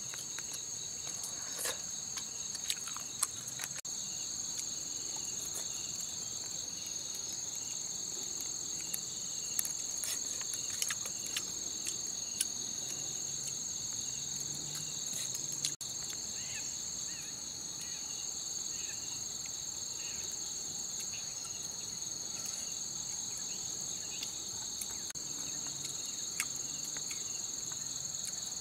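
Steady, high-pitched insect chorus that does not let up, with scattered light clicks of chopsticks against a bowl.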